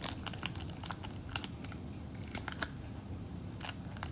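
Small plastic baggie crinkling with many irregular sharp clicks and ticks as a Zippo lighter is handled into it.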